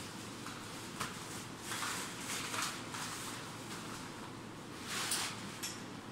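Fabric motorcycle cover rustling as it is dragged off the motorcycle, in several short bursts, the loudest about two and a half seconds and five seconds in.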